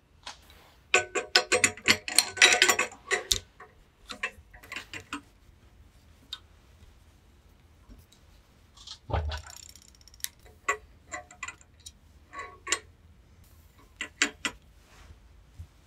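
Steel brake-line flaring tool being handled: a quick run of clinking, rattling metal clicks in the first few seconds, a dull knock about nine seconds in, then scattered single clicks as the flaring yoke is fitted and its screw turned down onto the tube.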